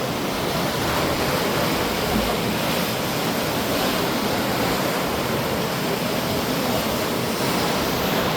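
Sea surf rushing on the shore, a steady even wash of breaking waves.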